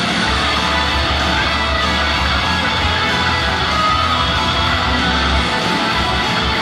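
Idol-group pop song played loudly through a stage PA, dense and full, with a heavy sustained bass that breaks up about five seconds in.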